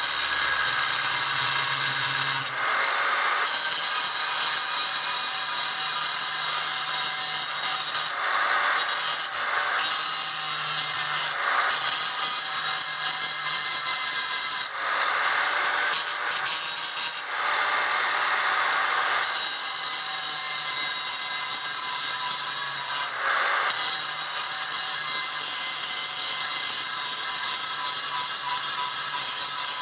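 Angle grinder running with a steady high whine, its disc cutting into the stone of a calcite ammonite, with several brief rougher surges as it bites harder.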